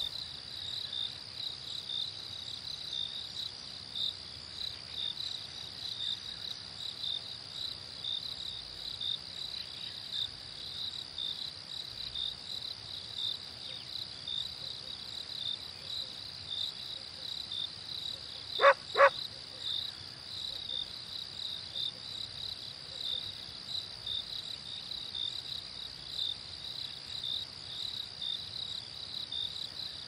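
Crickets chirping in a steady pulsing chorus. A little past halfway through, a dog barks twice in quick succession.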